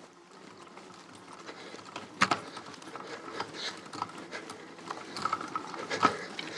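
Hub-drive e-bike climbing a steep dirt track under pedal assist: tyre noise on dirt and small stones with rattles from the bike, growing louder. There is a sharp knock about two seconds in and another near the end.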